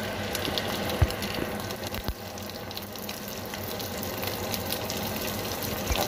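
Dried fish (daing) sizzling and crackling steadily as it fries in oil in a frying pan. A few dull knocks, the loudest about a second in.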